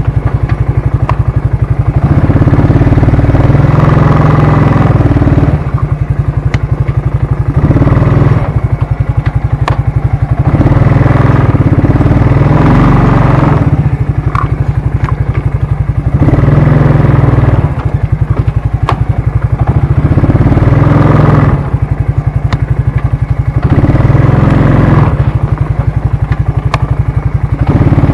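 ATV engine running while riding, the throttle opened and eased off every couple of seconds, with scattered clicks and rattles.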